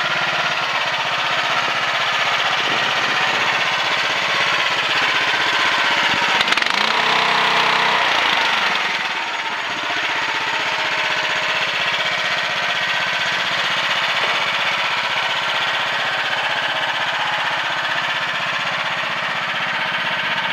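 CFG H12R mini excavator engine running steadily. It grows louder for a few seconds between about six and nine seconds in, opening with a single sharp knock, then settles back to its steady note.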